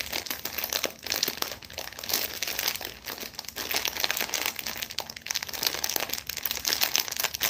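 Clear plastic wrapper of a packaged cream puff crinkling continuously as it is pulled open by hand.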